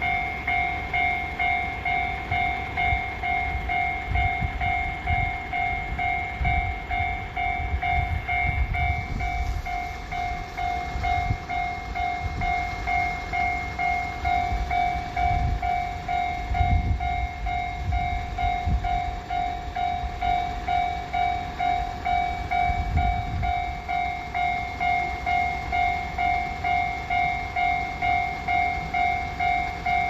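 Japanese railway level-crossing alarm bells ringing a fast, even, repeating electronic 'kan-kan' ding while the red warning lights flash, the signal that the crossing is closing for a train. A low rumble comes and goes in the middle.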